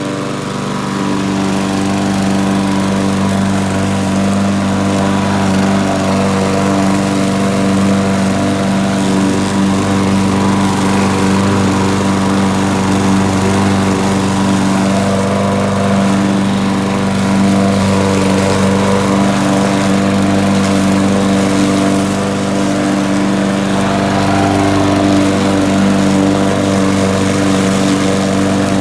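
Gasoline walk-behind push mower running loud and steady while being pushed through grass, cutting.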